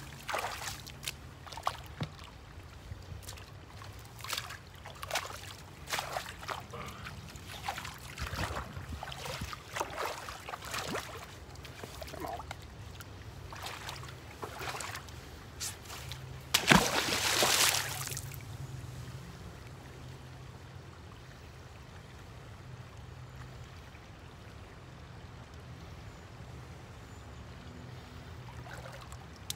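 Rubber boots stepping and sloshing through shallow water and wet mud, a series of short splashy steps. About 17 seconds in comes a single loud splash as a fishing magnet on a rope lands in the water.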